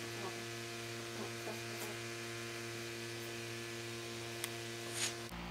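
Steady electrical mains hum, a stack of evenly spaced tones, with a few faint ticks. It cuts off suddenly just before the end.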